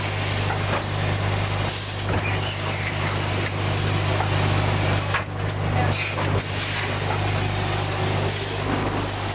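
Cat litter packing machine running: a steady low hum under continuous mechanical clatter, with a few sharper knocks about five to six and a half seconds in.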